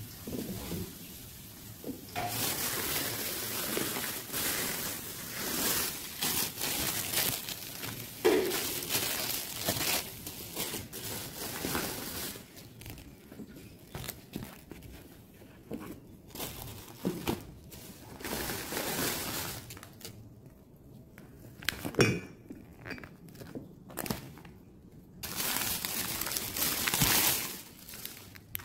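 Plastic shopping bags rustling and crinkling as groceries are unpacked. Glass bottles and jars knock and clink on a table top, with a couple of sharper knocks.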